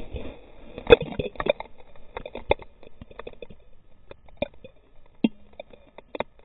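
Muffled underwater sound from an action camera held below the sea surface in its waterproof housing: scattered sharp clicks and knocks, the loudest about a second in, with a brief low hum a little after five seconds.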